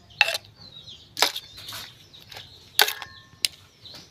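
Sharp knocks and clatter from a terracotta clay mortar being scraped and emptied of pounded noodles onto a steel tray, four distinct knocks spread through.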